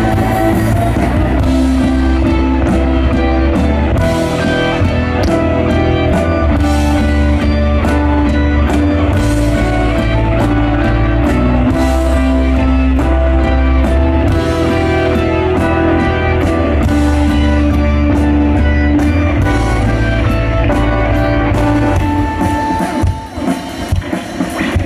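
Rock band playing live: an instrumental passage of electric guitar, bass and drums with no singing. A little before the end the full sound drops away, leaving uneven, scattered hits.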